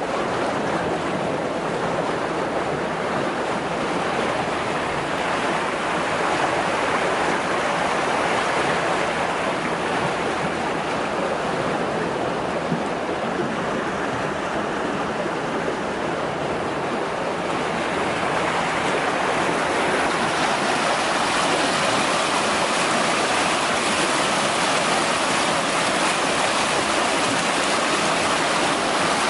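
Steady rush of churning wastewater from aerated sequencing batch reactor basins and a turbulent inflow chamber, with no break in it. From about two-thirds of the way in the rush turns brighter and hissier.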